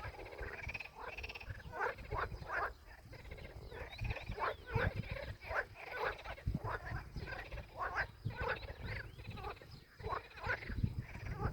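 Repeated short animal calls, a few a second, over a low rumble.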